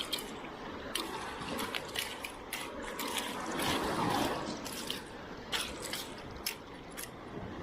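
Shallow sea water sloshing and splashing in an uneven wash that swells and eases, with many short sharp clicks and knocks scattered through it.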